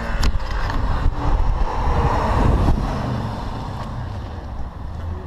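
A car's engine and exhaust heard from a distance, slowly fading, with wind buffeting the microphone.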